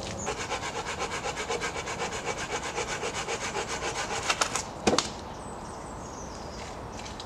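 Hand saw cutting through wood with quick, even strokes, about four a second, ending in a few sharp cracks.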